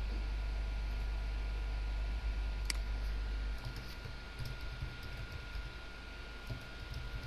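Computer keyboard typing in short runs of light keystrokes from about four seconds in, after a single sharp click a little before the three-second mark. A steady low hum and a faint high whine sit under it.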